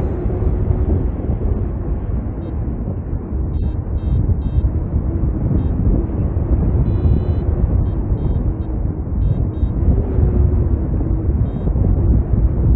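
Steady rush of wind over the microphone in flight, with short, high electronic beeps in quick clusters: a paragliding variometer chirping, the sign that the glider is in rising air.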